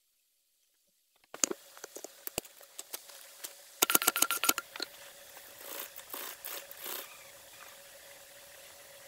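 After about a second of silence, dry wood shavings and tinder crunch and crackle as they are handled. A quick run of sharp clicks comes about four seconds in, then softer crackling as the shavings are set alight.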